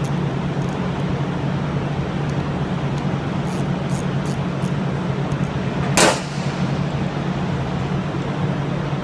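Socket wrench at work on the housing bolts of a hydraulic gear pump: a few faint clicks, then one sharp, loud crack about six seconds in, over a steady low hum of shop background noise.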